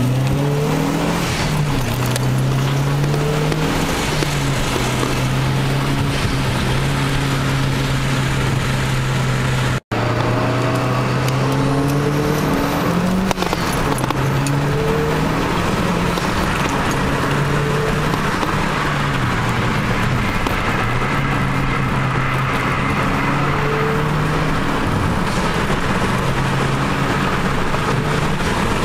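Mazdaspeed 3's turbocharged 2.3-litre four-cylinder engine running with a COBB aftermarket intake. Its note holds steady for stretches and dips and climbs in pitch several times, with a very brief dropout about ten seconds in.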